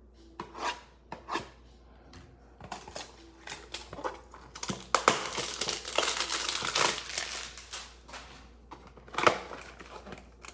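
Plastic wrapping on a trading-card hanger box crinkling and tearing as it is opened. There are a couple of light clicks at first, then a dense stretch of crinkling in the middle, and one sharp snap near the end.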